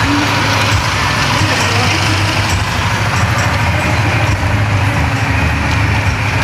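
Loud, steady din of a street procession: crowd noise over a continuous low rumble.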